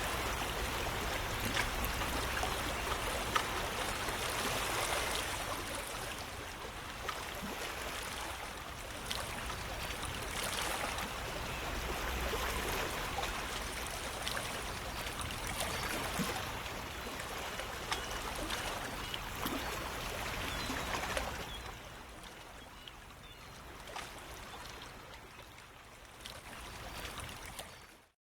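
Steady rushing of flowing water, like a stream. It gets quieter about three-quarters of the way through and stops abruptly near the end.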